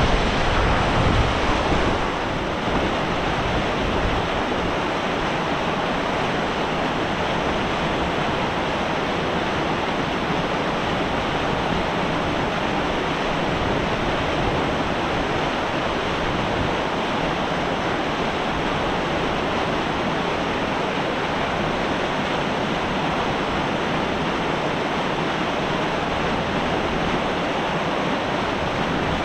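Fast-flowing mountain stream cascading over rocks, a steady rushing of white water. Wind buffets the microphone for the first couple of seconds.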